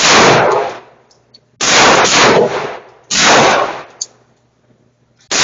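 Gunshots at a shooting range: four loud shots at a steady pace, about one every one and a half seconds, each ringing out for about a second before dying away, with light metallic clicks between them.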